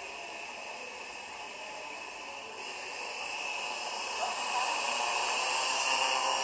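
Hovering quadcopter's propellers and motors whirring with a steady hiss, growing louder over the second half. It is heard played back through a TV speaker and re-recorded.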